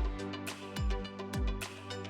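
Background music with a steady, deep kick-drum beat, a little under two beats a second.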